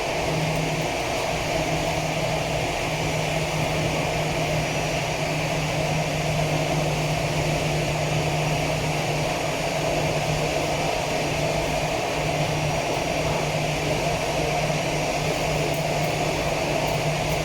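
Aircraft engine noise, steady and unchanging, with a constant low hum under a broad rushing sound.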